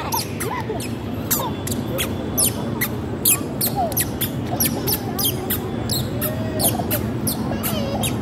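Toddler's squeaky shoes chirping with each step as she walks and runs, about three short high squeaks a second, over a steady low hum of background noise.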